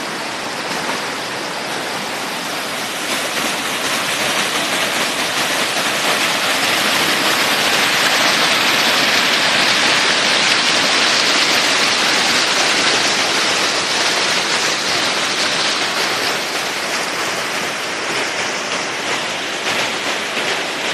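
Rushing water, steady and loud, swelling a few seconds in and easing off again near the end.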